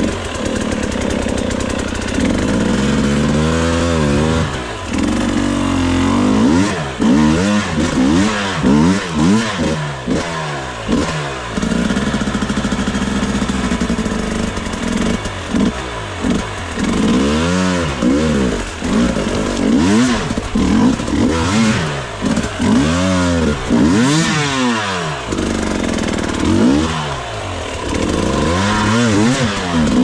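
Enduro dirt bike engine revving up and down in repeated short throttle bursts while the bike is ridden slowly through a rough creek gully.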